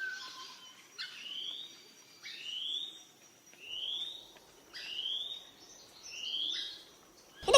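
A bird calling: a short note at the start, then five rising whistled notes, one about every second.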